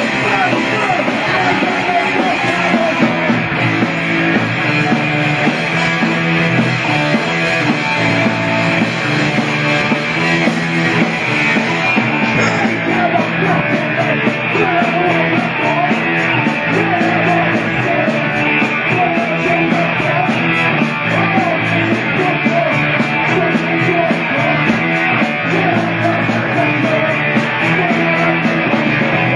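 A punk band playing live and loud: electric guitar and bass carrying on steadily through an instrumental stretch of the song.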